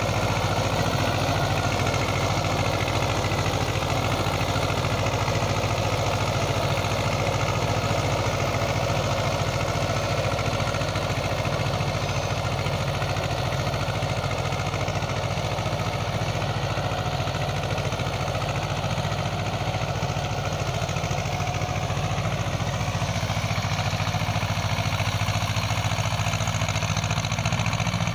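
Eicher 364 tractor's two-cylinder, air-cooled diesel engine running steadily under load while driving a seven-foot rotavator through the soil.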